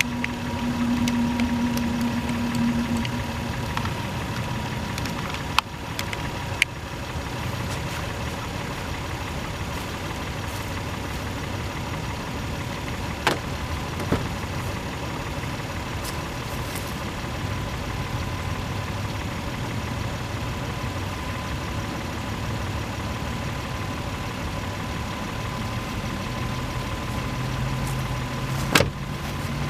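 Car engine idling steadily, with a handful of sharp clicks and knocks from handling gear over it.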